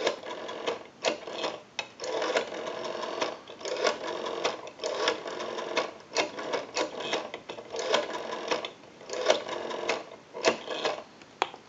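Rotary dial of a Stromberg Carlson 554 wall telephone being dialled digit by digit: each pull of the finger wheel is followed by a run of clicks as it springs back, with short pauses between digits.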